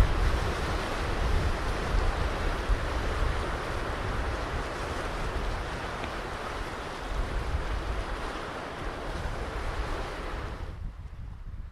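Ocean surf washing on a beach, a steady dense hiss, with wind rumbling on the microphone. The hiss drops away abruptly near the end.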